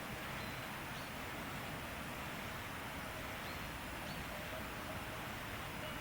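Forest ambience: a steady hiss of air and leaves, with a few faint, short bird chirps scattered through it.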